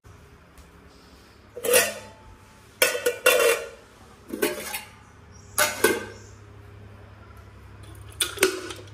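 Metal cooking pots, lids and plates handled on a stovetop: about five bouts of clanking and clinking as lids are lifted and set down, with a faint low hum underneath from about halfway.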